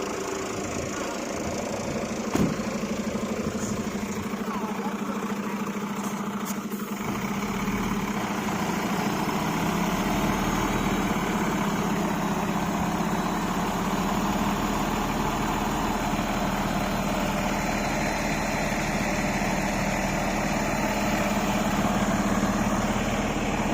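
Heavy truck's diesel engine running steadily, growing louder about seven to ten seconds in. A single short knock comes early.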